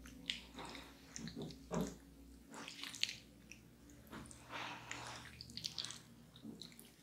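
Hands sliding and pressing over bare skin slick with oil and passion fruit pulp, soft wet sounds coming at an uneven pace, with a longer smooth stroke a little past the middle.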